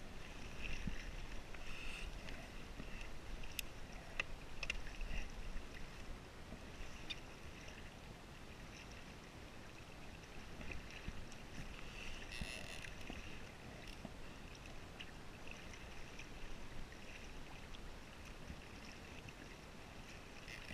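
Water lapping and trickling against a kayak's hull, with a few sharp clicks about four to five seconds in and a low rumble of wind on the microphone over the first several seconds.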